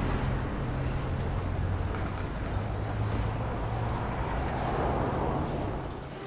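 Street traffic ambience: a steady low rumble of passing vehicles that swells briefly about five seconds in and drops away at the end.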